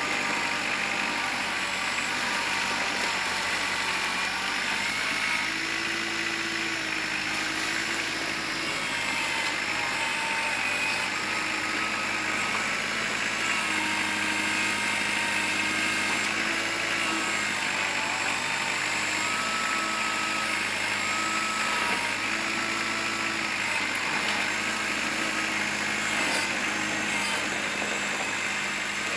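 Kubota L4600 tractor's diesel engine running steadily, its pitch stepping slightly up and down every second or so.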